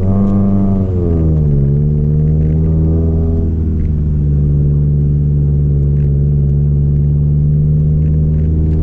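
Honda Civic Nouva's four-cylinder engine pulling in first gear up a steep climb, heard inside the cabin. The revs fall over the first second and a half, hold steady, then begin to rise near the end.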